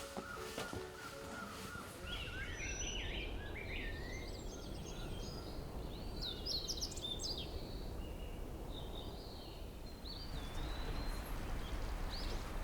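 Small birds chirping and calling in short, quick-gliding notes over a steady outdoor background noise. A few held tones fade out in the first two seconds.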